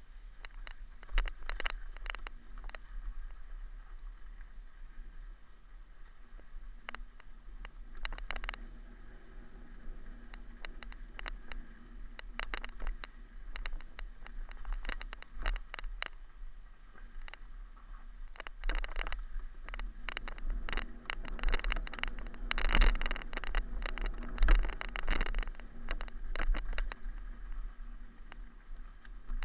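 Low steady wind rumble on a small camera's microphone, broken by irregular clicks, rattles and crunches that grow thicker and louder in the second half.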